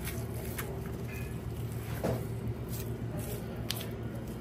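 Fat cap being peeled off a raw beef inside round by a gloved hand and knife tip: a handful of short, soft wet clicks and tearing sounds, the strongest about two seconds in, over a steady low machine hum.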